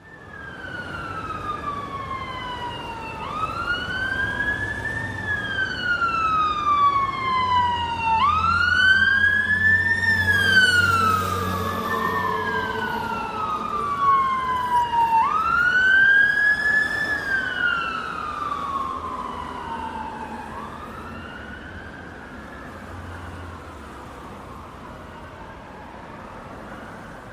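Emergency vehicle siren passing by: a slow wail that rises quickly and falls away slowly, repeating every few seconds, growing louder as it approaches, loudest around the middle, then fading as it drives off. The vehicle's own rumble comes through briefly as it passes closest.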